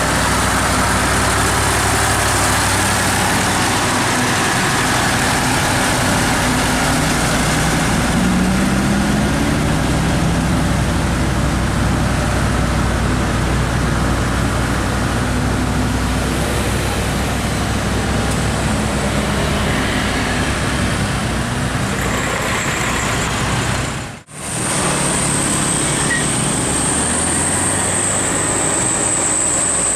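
Steady roadside traffic noise: vehicles passing with engine drone and tyre noise, one engine's pitch sliding as it goes by about a third of the way through. A brief break about 24 seconds in, after which a thin steady high-pitched whine sits over the traffic.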